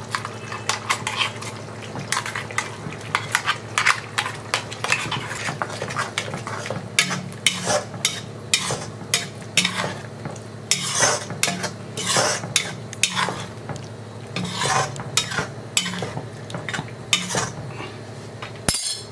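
A metal ladle stirring ground coconut paste into a simmering tamarind curry in a metal kadai, knocking and scraping against the pan many times over a steady low hum.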